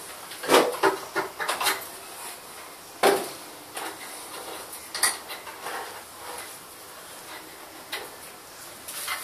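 Hard plastic clicks and knocks from handling a car headlight housing and a cordless drill on a wooden table. A quick cluster comes in the first two seconds, with the loudest knocks about half a second and three seconds in, then a few scattered clicks.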